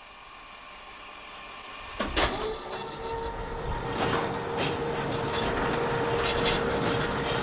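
A machine starts with a clunk about two seconds in, then runs with a steady whine and rattling clicks that grow louder.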